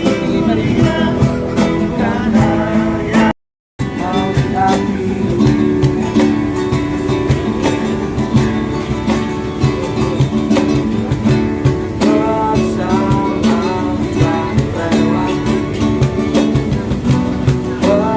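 Street busker singing to a strummed acoustic guitar; the sound cuts out completely for a moment about three seconds in.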